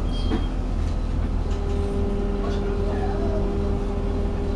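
Interior of a Charleroi light-rail tram in motion: a steady low rumble from the wheels on the track with a steady hum over it.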